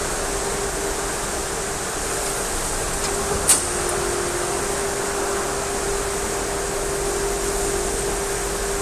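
Steady hiss of water spraying from a handheld shower head onto a wet dog's fur, over a steady hum. One sharp click about three and a half seconds in.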